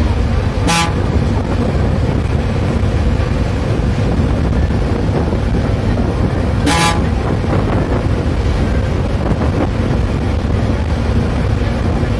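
Intercity bus running steadily, its engine and road noise heard from the driver's cabin, with two short horn toots about six seconds apart.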